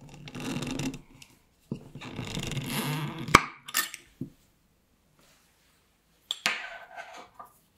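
Metal screw lid being twisted off a glass jam jar: two stretches of grinding as it turns, the second ending in a sharp click about three and a half seconds in as it comes free. A further click and a brief scrape near the end.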